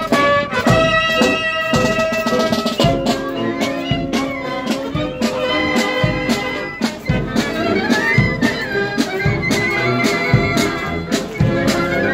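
Marching band of brass, saxophones and drums playing a march, the horns carrying the tune over a steady drumbeat.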